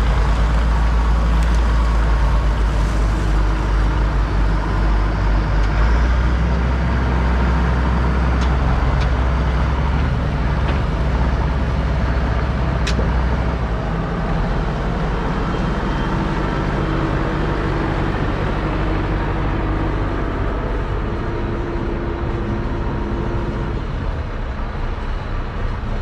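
Allis-Chalmers 7045 tractor's diesel engine running steadily under load, a deep drone. It eases off a little about halfway through. There is a single sharp click near the middle.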